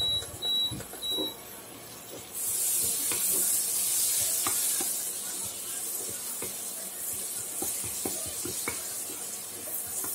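Three short high beeps from an induction cooktop's touch controls as the power is turned up, then, about two seconds in, butter and cumin seeds begin sizzling steadily in a nonstick frying pan. Light taps and scrapes of a wooden spatula stirring run through it.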